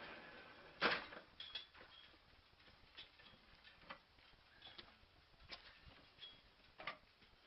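Machine and sawing noise fading out, then faint, irregular clicks and ticks, the sharpest about a second in.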